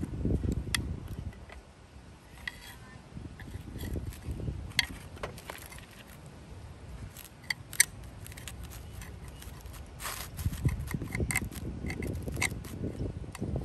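Flat screwdriver prying at the rusted metal snap ring that holds the felt in place inside an old Robbins & Myers fan: scattered sharp metallic clicks and short scrapes, with low bumps of handling.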